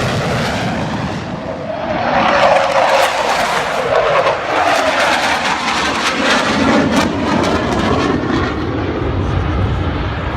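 Military fixed-wing aircraft flying past low, its loud engine noise swelling about two seconds in and its pitch sliding down as it goes by.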